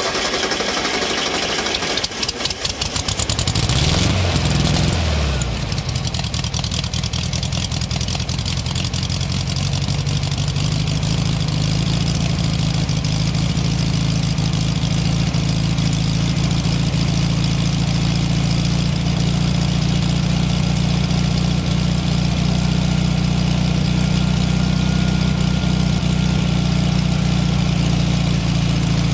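1970 VW Karmann Ghia's air-cooled 1.6-litre flat-four boxer engine being started from cold: the starter cranks and the engine catches about two seconds in. It is revved briefly around four seconds, then settles into a steady idle.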